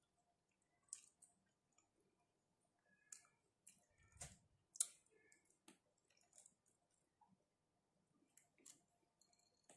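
Faint, scattered wet clicks and smacks of durian being eaten by hand: the mouth chewing the soft flesh and fingers pulling flesh off the spiky husk. The sharpest click comes about five seconds in.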